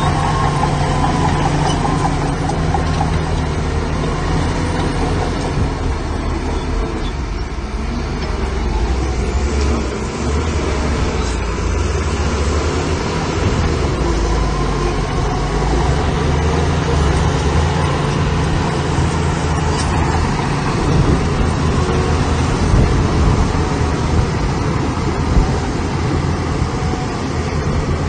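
Heavy diesel engines of earthmoving machinery running steadily, with their sound concentrated low and constant throughout.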